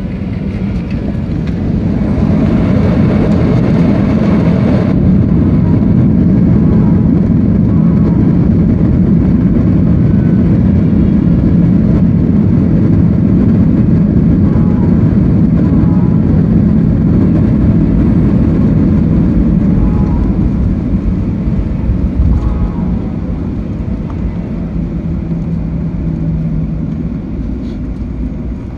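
Airliner jet engines and the rush of the landing roll, heard from inside the cabin just after touchdown. The noise swells over the first few seconds, as reverse thrust typically does, with a higher hiss that stops suddenly about five seconds in. It then stays loud and slowly eases off as the plane slows on the runway.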